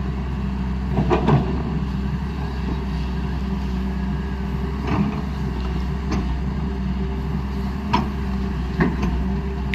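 Hyundai R210 Smart Plus excavator's diesel engine running steadily, with a few sharp knocks: a cluster about a second in and single ones near the middle and toward the end.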